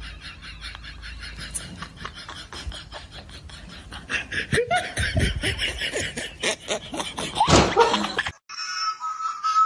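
A person laughing in short repeated bursts, louder from about halfway through, with a loud outburst shortly before the sound cuts off.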